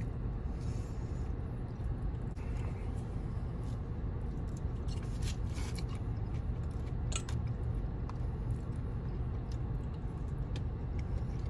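Eating sounds: chewing, and scattered clicks and scrapes of a plastic fork and chopsticks against a styrofoam takeout container, over a steady low hum in the car cabin.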